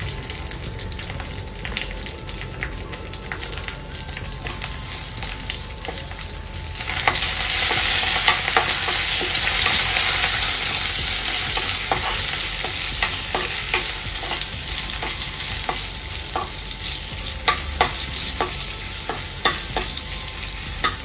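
Coconut oil sizzling in a kadhai with mustard seeds, curry leaves and asafoetida, a tadka being tempered, while a metal spoon stirs and scrapes through the pan with scattered crackles and clicks. About seven seconds in, the sizzle suddenly grows louder and stays up.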